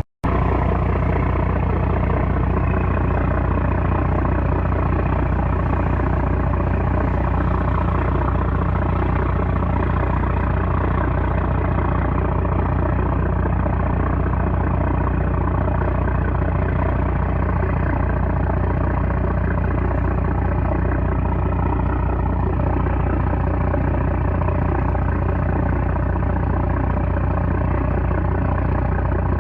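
A small trawler's 330-horsepower engine running loud and steady, a deep, even drone with a constant hum and no change in speed. The sound drops out for a split second right at the start.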